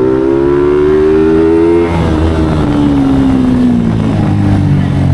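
Yamaha Sniper 150 V2's single-cylinder four-stroke engine, fitted with an open throttle body, revved up in one long rising pull for about two seconds, then let off so the revs fall away and settle back to a steady lower speed.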